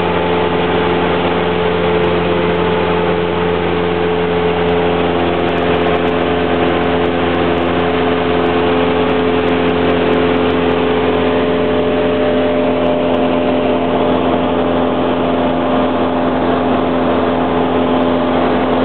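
A Cessna 172's piston engine and propeller droning steadily in flight, heard inside the cabin, with an even rush of air noise and no change in pitch.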